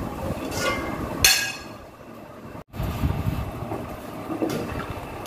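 Ceramic plates and dishes clinking on a table as they are set down: two sharp, ringing clinks in the first second and a half. After a brief break, a quieter clatter of glasses and dishes being handled.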